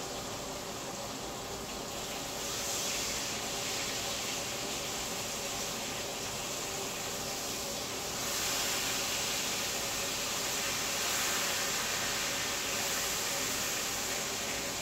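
Chicken frying in a skillet: a steady sizzle that swells about two and a half seconds in and again louder about eight seconds in.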